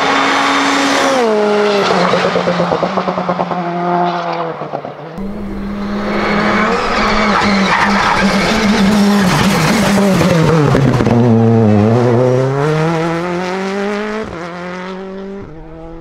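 Citroën C3 rally car's turbocharged 1.6-litre four-cylinder engine at high revs. The pitch steps down a few times as it shifts down under braking, then rises again as it accelerates hard out of a corner. The sound changes abruptly twice where passes are cut together.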